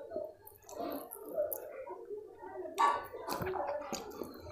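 Fingers squishing and mixing soft khichdi into liquid kadhi, an irregular wet squelching, with one sharper wet smack about three seconds in.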